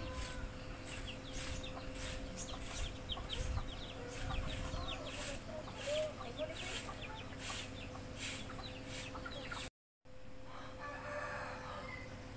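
Chickens clucking, with short high downward-gliding calls repeated about twice a second. The sound cuts out briefly near the end, and a quieter steady hiss follows.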